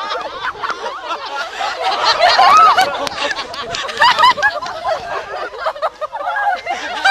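A crowd of high-school students laughing, snickering and chattering over one another, loudest about two to three seconds in.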